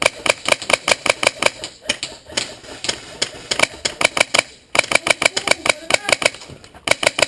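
Rapid airsoft gunfire: a fast string of sharp snapping shots, about eight to ten a second, with a brief break a little past halfway.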